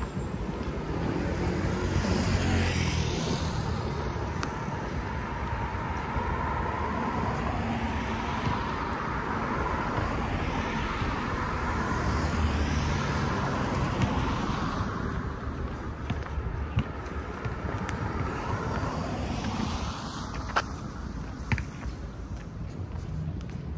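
Road traffic running past: a steady noise with a few vehicles swelling past, and some sharp clicks near the end.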